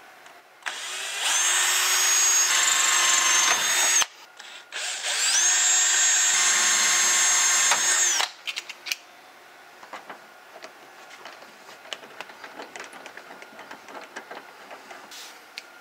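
Cordless drill drilling holes through the metal back panel of a structured media enclosure. It spins up and runs steadily for about three seconds, stops, then drills again for about three seconds. Faint clicks and handling noises follow.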